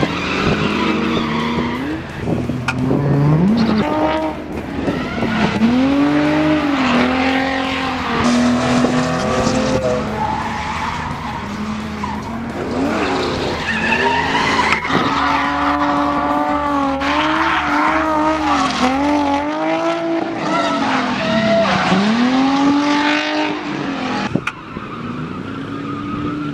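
Drift car engines revving hard, their pitch climbing and dropping over and over as the throttle is worked, with tyres screeching as the cars slide.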